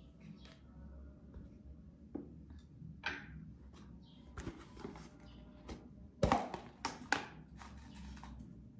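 Scattered light clicks and knocks of kitchen utensils and spice containers being handled, the loudest a sharp knock about six seconds in followed by two more, over a low steady hum.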